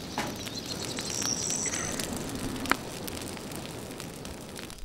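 Crackling and hissing of the wood fire that heats the cattle branding irons, with scattered sharp pops, one louder near the end.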